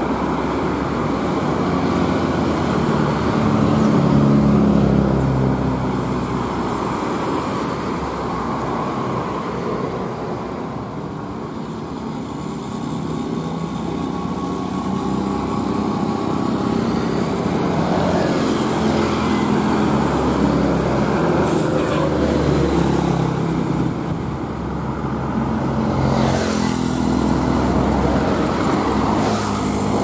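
Mixed road traffic driving past: engines of cars, motorcycles, trucks and a bus, with tyre noise, rising and falling gently as vehicles come and go.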